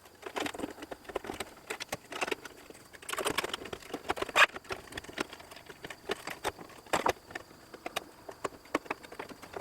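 Irregular clicks, taps and scraping rustles of hands and tools handling parts on a workbench, with the loudest click about four seconds in.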